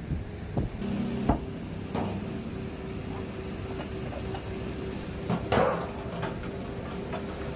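Kitchen clatter: a few sharp knocks of utensils and objects being handled over a steady hum, with a louder rattling clatter about five and a half seconds in.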